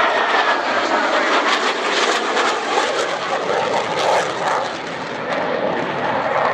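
The two Klimov RD-33 turbofans of a MiG-29 fighter in flight, giving a loud, steady jet rush with a crackling edge.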